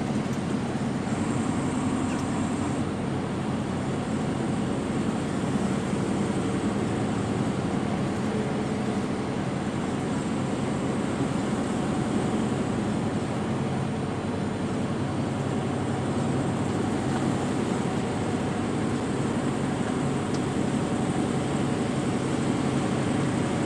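Steady drone of a loaded semi truck's diesel engine heard from inside the cab, with tyre and road noise on a wet, slushy highway.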